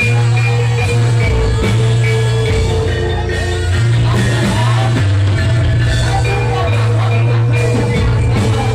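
Loud music with a deep, held bass and a melodic line over it.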